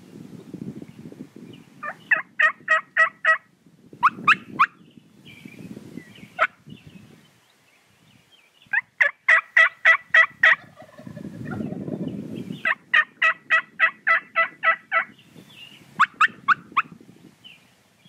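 Rio Grande wild turkeys calling from the roost at first light: several runs of rapid, evenly spaced call notes, five of them, some of a few notes and some of about a dozen. A low rumble sits underneath at times.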